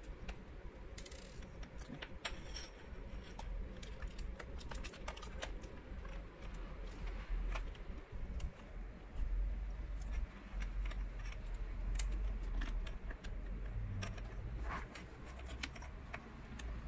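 Scattered small clicks and taps of fingers working wires and parts into a laptop's plastic chassis during reassembly, over a low rumble.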